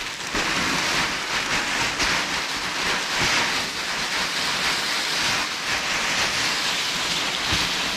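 Dry chips pouring and sliding out of a woven plastic sack onto a heap: a continuous dry rattling hiss, with the sack rustling as it is tipped.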